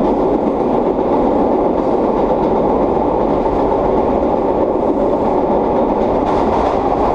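1930s R1/9 subway cars running at speed through a tunnel: a steady, dense rumble of wheels on rail with the growl of their straight-cut traction gears.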